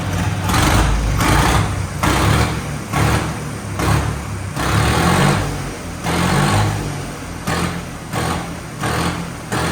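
John Deere 5305 tractor's three-cylinder turbocharged diesel running with its silencer off, revved in short blips about once a second, each surge rising and falling in pitch. The unmuffled exhaust carries the turbo's whistle.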